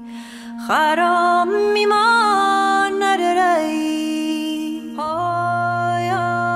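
Background music: a slow, sustained melody over a held drone, with a low bass note coming in about five seconds in.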